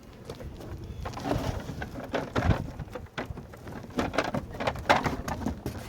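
Irregular clatter of knocks and taps from beehive equipment being handled, growing busier about a second in.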